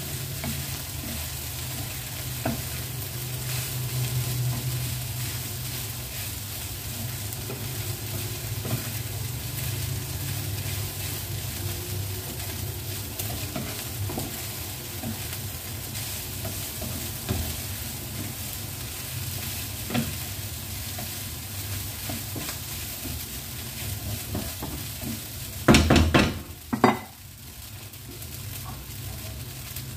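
Rice frying and sizzling in a pan as it is stirred and tossed with wooden utensils, with small scrapes and taps, over a steady low hum. Near the end come two loud clatters.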